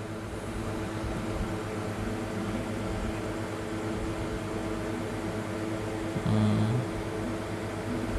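Steady mechanical hum with a constant low tone, like a motor or fan running. Near the end there is a brief voice-like sound lasting about half a second.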